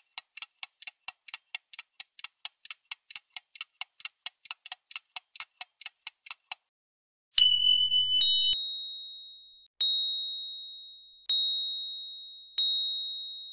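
Timer ticking quickly, about four ticks a second, then a brief buzz and four ringing dings that each fade out, the usual ticking-clock-then-ding mark of a cooking or baking time finishing.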